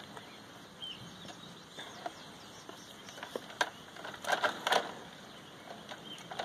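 A goat kid's hooves tapping and scuffing on a rubber mat as it steps about: scattered light taps, with a quick cluster of louder ones about four and a half seconds in.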